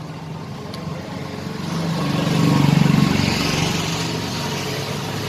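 A motor vehicle engine runs close by, growing louder to a peak about halfway through and then easing off a little.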